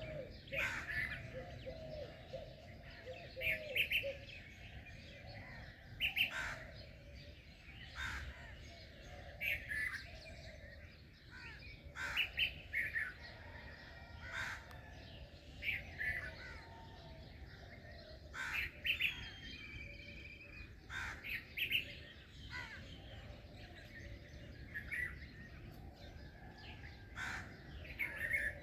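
Several birds chirping and calling, short calls every second or two that sometimes overlap, over a steady low background noise.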